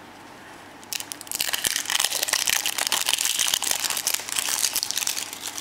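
Foil wrapper crinkling as it is peeled off a chocolate surprise egg: a dense run of crackling that starts about a second in and dies away near the end.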